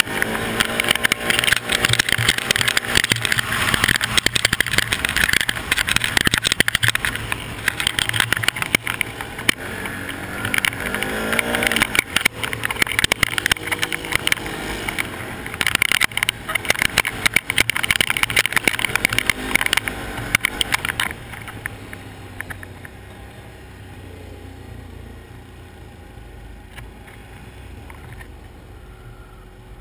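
Can-Am quad's V-twin engine pulling along a dirt trail, its pitch rising and falling with the throttle under heavy wind noise on the helmet camera. About two-thirds of the way through, the wind noise drops away and the engine settles to a low, steady running as the quad slows almost to a stop.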